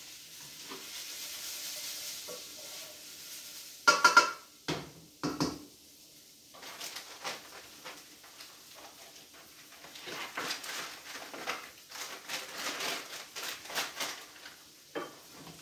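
Diced potatoes sizzling in oil and butter in a stainless steel frying pan while being stirred, with a few sharp knocks of a utensil against the pan about four seconds in. Later come quick, light clattering clicks of kitchen things being handled.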